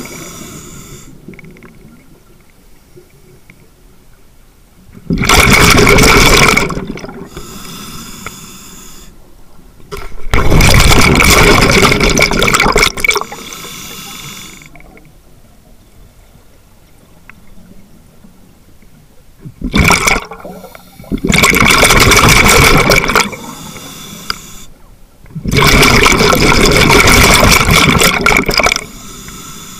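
Scuba diver breathing underwater through an open-circuit regulator, heard from a camera built into the dive mask. Every five seconds or so a loud rush of exhaled bubbles lasts one to three seconds, with a much quieter hiss of inhalation between.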